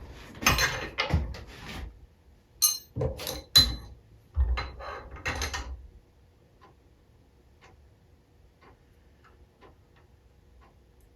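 Metal engine parts and tools clinking and knocking as they are handled during assembly, for about six seconds. After that, faint ticking about once a second.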